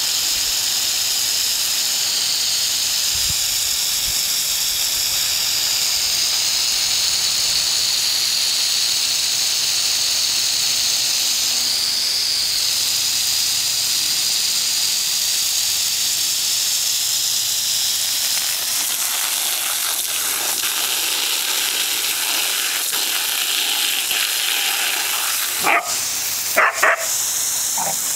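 Steady hiss of a lawn sprinkler's water jet spraying over the grass. Near the end a dog barks three times in quick succession.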